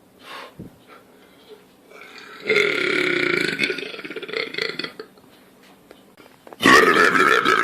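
A person burping: a long burp lasting about two and a half seconds begins a couple of seconds in, then a second loud burp starts near the end.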